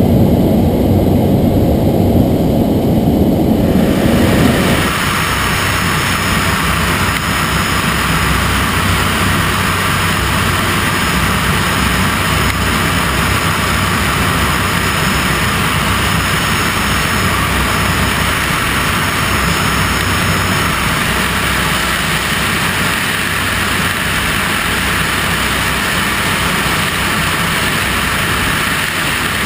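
Cessna 208B Caravan's turboprop engine and propeller running steadily in flight. For the first four to five seconds it is muffled cabin drone; then it switches abruptly to a brighter rush of wind and engine noise as heard from outside the aircraft.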